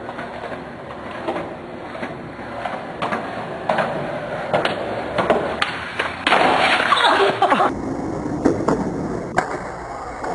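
Skateboard wheels rolling on concrete, with scattered sharp clacks and knocks of the board. A louder rush of rolling noise lasts about a second and a half past the middle.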